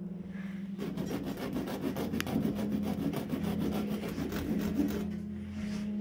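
Small hand saw rasping in quick back-and-forth strokes across a shoe sole, cutting grooves so the slippery shoe grips on stones. The sawing starts about a second in and stops near the end.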